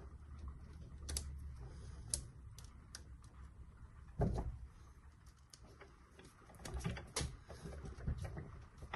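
Small clicks and taps of hands handling a cordless circular saw's plastic trigger switch and its bypass wire with ring terminals, with a dull thump about four seconds in.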